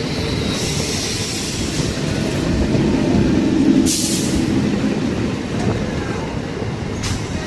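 Indian Railways train passing close by: a loud, steady rumble of wheels on rail that swells toward the middle, with a brief sharp hiss-like burst about four seconds in and a shorter one near the end.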